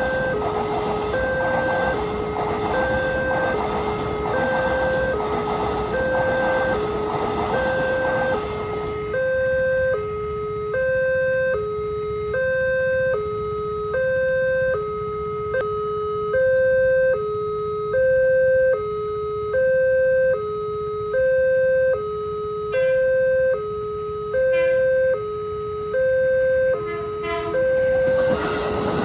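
Railway level-crossing warning alarm sounding: an electronic two-tone signal alternating high and low, about one cycle every second and a half, warning that the barrier is down for a train. For the first nine seconds it sounds over a loud rushing noise, which then stops, leaving the alarm alone.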